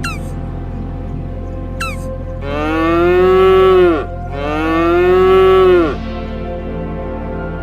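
Cattle mooing twice, two long calls of about a second and a half each, over steady background music.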